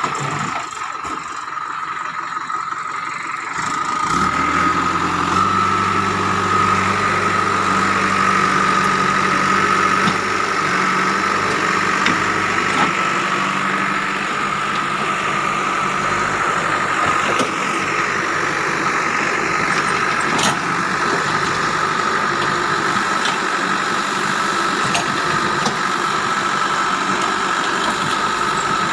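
JCB 3DX backhoe loader's diesel engine running steadily, with a steady high-pitched whine over it. About four seconds in, the engine note deepens and grows louder, then holds.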